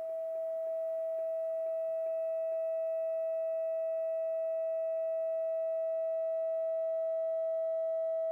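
A steady 650 Hz tone driving a sand-covered Chladni plate, one pure pitch held unbroken with faint higher overtones, growing slightly louder in the first second or so.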